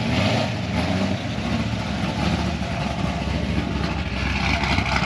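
A steady mixed din of car engines idling and running in the background, with no single engine standing out.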